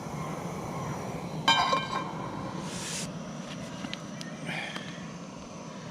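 OEX gas camping stove burner running steadily under a pot as it heats water, with a short ringing sound about one and a half seconds in.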